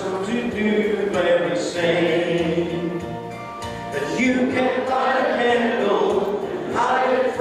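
A church congregation singing a gospel hymn together, with a man's voice leading on a microphone; long held notes with short breaks between phrases.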